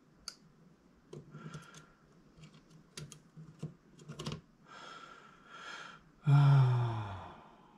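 Light clicks and taps of pliers and small metal gearbox parts being handled while fitting a tappet spring, then about six seconds in a loud, low groan that falls in pitch.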